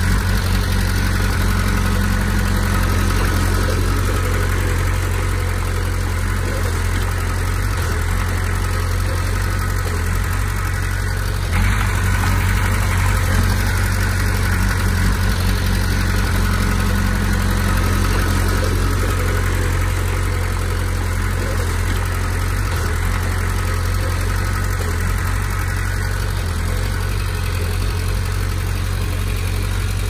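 Komatsu D20P bulldozer's diesel engine running steadily, with a single knock about eleven seconds in.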